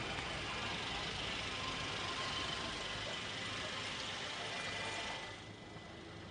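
Steady hiss of street ambience with a car engine idling at the curb; the hiss drops away suddenly about five seconds in.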